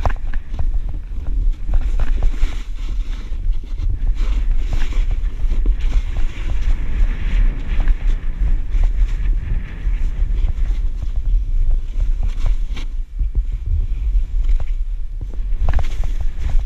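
Wind rumbling and buffeting on the microphone during a snowboard descent, with the board hissing and scraping through powder snow.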